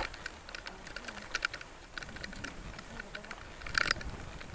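Footsteps crunching on a stony gravel track: a few irregular short crunches, a pause, then more near the end.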